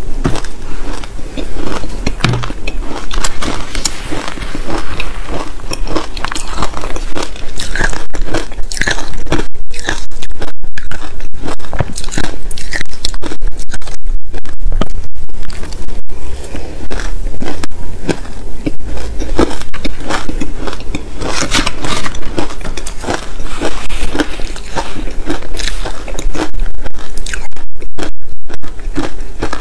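Close-miked crunching and chewing of soft, powdery shaved ice, many sharp crackly bites in quick succession, with a spoon scraping the ice from the bowl.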